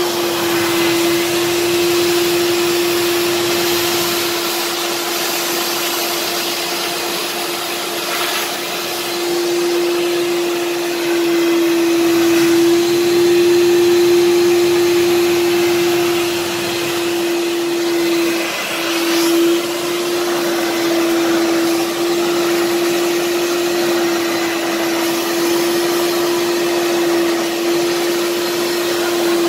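Kärcher Puzzi 10/1 spray extractor's suction motor running steadily: a constant whine over the hiss of air being drawn through the nozzle. The whine breaks off for a moment a little past the middle.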